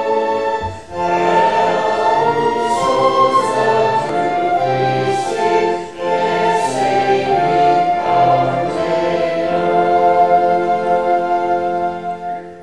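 A choir singing slow, sustained phrases over an accompaniment. It fades out near the end.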